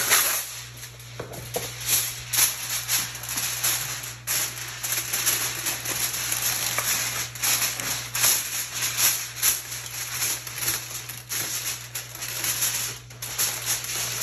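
Aluminium foil crinkling and crackling as a sheet is spread over a disposable aluminium tray and pressed down around its edges. The crackle is irregular, with many sharp ticks throughout.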